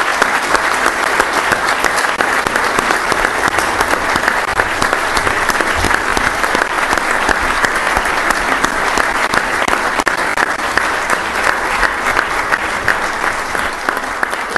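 A hall audience applauding steadily: many hands clapping in a dense, continuous patter that begins to ease off near the end.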